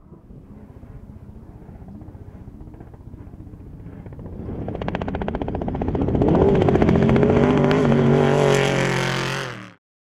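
Off-road desert race truck's V8 engine running at high revs, growing louder from about four seconds in as the truck closes in, then held loud at full throttle close by before cutting off suddenly near the end.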